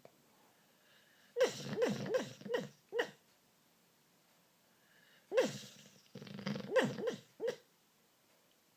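Staffordshire bull terrier making short pitched yips and whimpers in its sleep while dreaming: a quick run of them about a second and a half in, and another about five seconds in.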